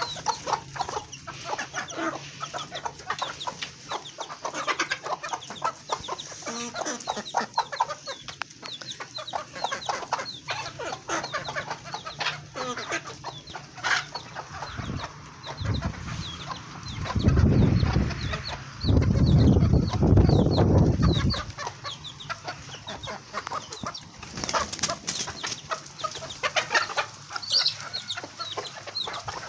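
A flock of chickens clucking, with many short calls overlapping without a break. For several seconds past the middle a loud low rumble covers them.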